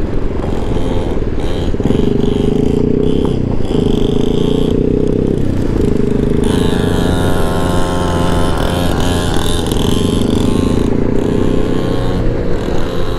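Honda Ruckus scooter's 49cc single-cylinder four-stroke engine running steadily at riding speed on a gravel road, heard from on board. A second, higher-pitched engine note joins about six seconds in and fades about four seconds later.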